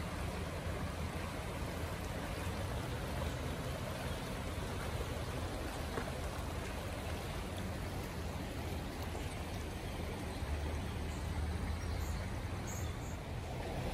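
Water of a waterfall rushing, a steady unbroken noise.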